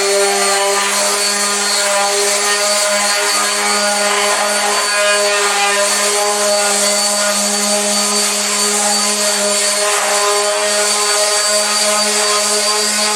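Electric random orbital sander with 120-grit paper running steadily against wood, a constant hum over a sanding hiss.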